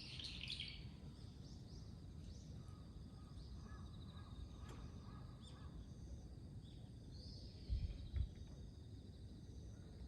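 Starlings calling: a burst of calls at the start, scattered chirps, and another call about seven seconds in, over a steady low background rumble. Two short low thumps come around eight seconds in.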